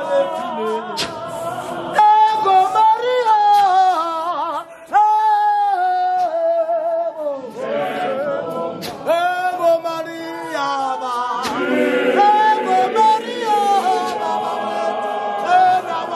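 A mixed group of men's and women's voices singing a hymn together a cappella, with sustained, wavering notes and a few sharp taps in between.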